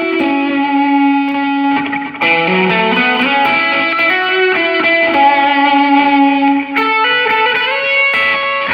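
Electric guitar played through a Line 6 POD Go modeller with the guitar's volume knob turned up: a lead lick of sustained single notes that change every second or so.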